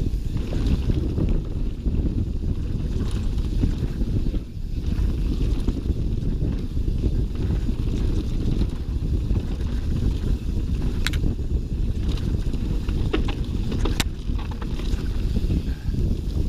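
Wind buffeting the microphone of a mountain bike's action camera at speed on a descent, a steady low rumble mixed with the Schwalbe Nobby Nic tyres running over dirt singletrack. A few sharp clicks and knocks come in the second half.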